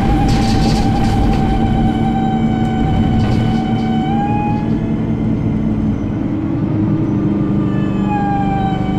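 ADL Enviro 300 single-deck bus heard from on board: the engine and drivetrain drone steadily, with a loud high-pitched squeal that drifts down in pitch, slides up and stops about halfway through, then comes back near the end. There are a few light rattles in the first second.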